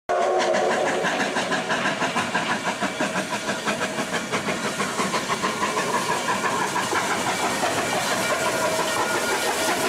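Durango & Silverton narrow-gauge steam locomotive No. 480, a K-36 2-8-2, working with hissing steam and a fast, even rhythmic beat.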